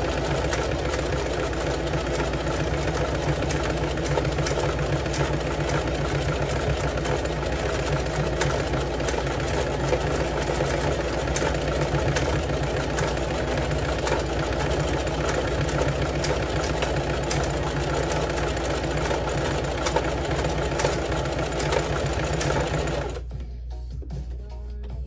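Singer Heavy Duty sewing machine running steadily, stitching through coiled climbing rope, then stopping near the end.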